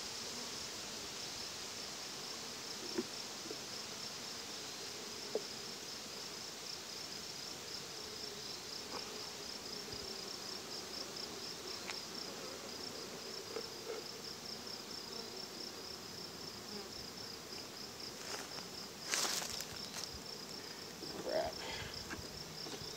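Honeybees buzzing around an open hive, a faint wavering hum, under a high insect chirp that pulses fast and evenly throughout. A short scraping rustle comes near the end.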